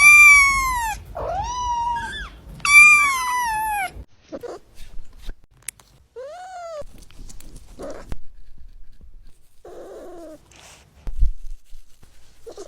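A cat meowing: three loud, long, high calls, each falling in pitch, in the first four seconds, then a few fainter meows. A short thump comes near the end.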